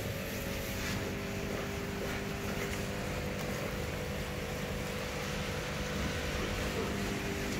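Electric water pump running with a steady hum over an even rush of water, plausibly drawing water out of the goldfish tank during a 10% water change.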